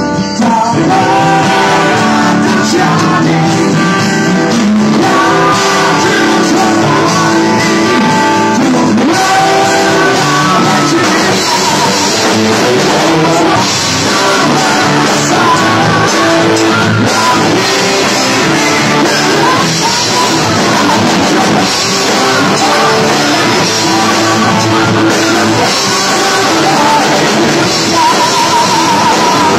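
Rock band playing a song: a sung lead vocal line over electric guitars, bass and drums, loud and continuous.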